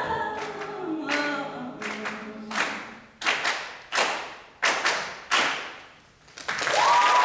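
A cappella choir's last sung notes fading, then a run of sharp percussive hits, each ringing out, about 0.7 s apart and getting louder toward the end. Audience applause and a cheer break out near the end.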